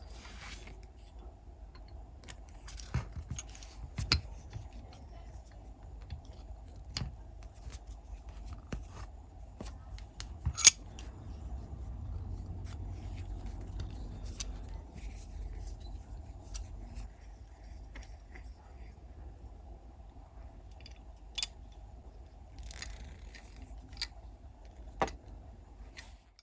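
Small metal parts clicking and tapping now and then, with one sharp click about ten seconds in, over a faint steady hum.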